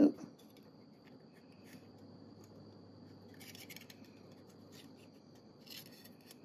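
A dull knock as a piston ring is pushed into a small block Ford cylinder bore, followed by faint scraping and clicking of a steel rule against the ring and bore about halfway through and again near the end, as the ring is squared an inch down the bore. A faint steady high tone sits under it.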